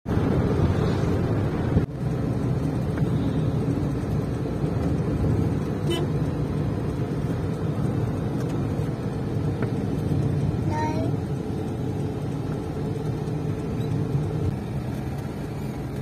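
Steady road and engine rumble heard from inside a moving car, with a short car-horn toot about eleven seconds in.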